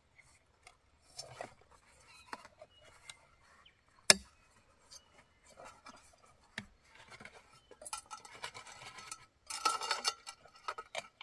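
Light metallic clicks and clinks as a Svea 123R brass camping stove is handled and fitted into its burner frame, with one sharp clack about four seconds in and a louder spell of handling noise near the end.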